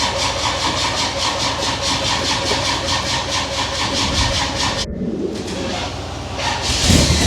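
The Shelby's engine being cranked over by its starter without catching: a steady rhythmic churn of about four to five beats a second that stops abruptly about five seconds in. A louder low rumble starts near the end.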